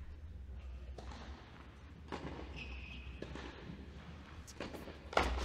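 Steady low hum of an indoor tennis hall between points, with scattered faint knocks and a few sharper thuds near the end, typical of a tennis ball being bounced on the hard court.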